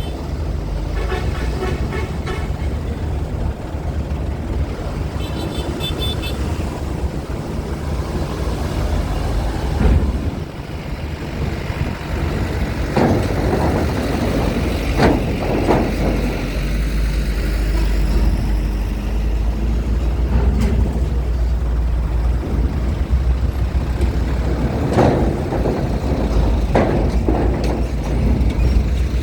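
Heavy vehicles such as trucks and buses running, with a deep steady engine rumble and several loud thumps in the middle and near the end. Two short spells of rapid beeping come in the first few seconds.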